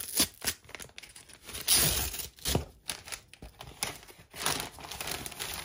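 Small brown paper envelope being torn open and handled: a run of tearing and crinkling paper sounds, loudest about two seconds in.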